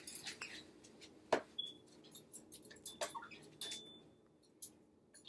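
Scattered light clicks and taps as an African grey parrot picks at and handles small hard objects it has been told to leave alone.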